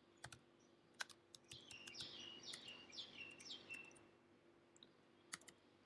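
Faint, scattered clicks of a computer keyboard as a few keys are typed, with a bird chirping a quick run of about six short falling notes in the middle.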